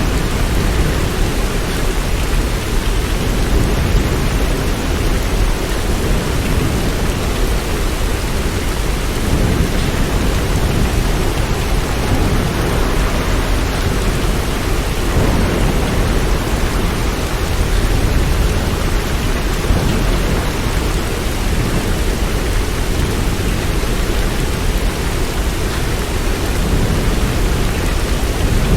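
Steady heavy rain, a dense even hiss with a constant deep rumble underneath.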